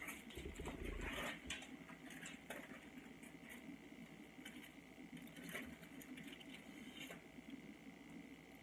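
Aluminium hair-colouring foil crinkling and rustling in short, scattered crackles as it is handled and folded against the hair, over a faint steady high-pitched tone.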